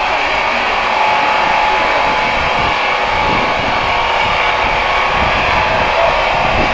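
Sawmill log saw running, a loud, steady machine noise with no breaks.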